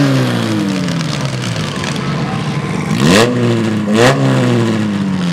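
Demolition derby mini-car engines running and revving. The pitch sags over the first two seconds, then jumps sharply twice, about three and four seconds in, each time with a brief harsh burst of noise, and sinks back again.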